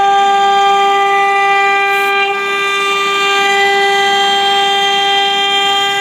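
AccTek CNC router spindle whining at one steady high pitch with overtones while its bit mills a pocket into a wooden board, with a hiss of cutting underneath.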